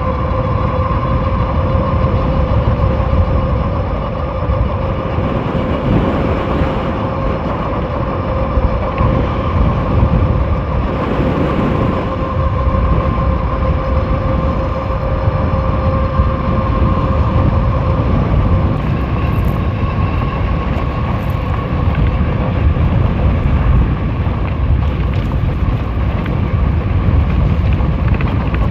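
Dual-motor fat-tyre e-bike riding at speed: a steady whine from its 1,000 W hub motors and fat tyres under heavy wind rumble on the microphone. The lower of the whine's two pitches fades out about two-thirds of the way through.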